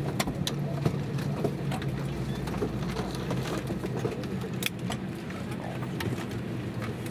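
Airbus A320 cabin noise while taxiing: the engines' steady low hum at idle, with a few short sharp clicks.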